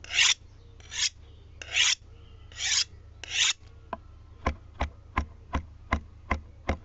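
Five short rasping strokes, each about a third of a second and a little under a second apart. They are followed by a steady run of sharp clicks, about three a second.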